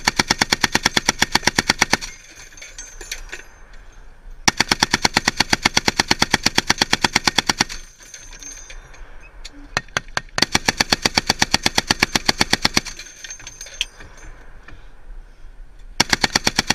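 M2 .50-calibre heavy machine gun firing from the gunner's position, heard up close: long bursts of rapid, evenly spaced shots. A burst of about two seconds opens, a longer one of about three seconds follows, then a few lone shots, a further burst of a couple of seconds, and a new burst near the end.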